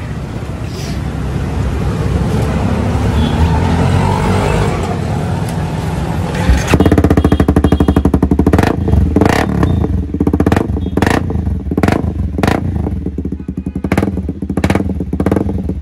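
Honda CBR250R's single-cylinder engine running through an aftermarket M4 muffler. It runs steadily at first, then from about seven seconds in it is revved in a series of short, sharp throttle blips.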